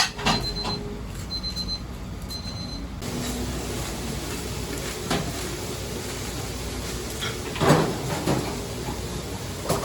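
Restaurant kitchen background: a steady hum of running equipment with scattered knocks and clatters, the loudest near the end. Short high beeps repeat through the first few seconds, and the hum grows louder about three seconds in.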